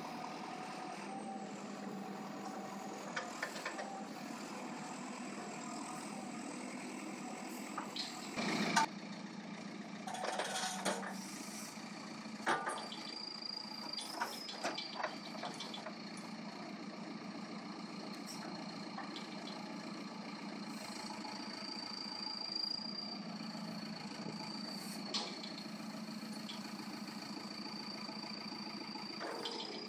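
JCB 3CX backhoe loader's four-cylinder diesel engine running steadily, with a thin high whine that changes pitch and a scatter of short knocks from the working machine, the loudest about nine seconds in.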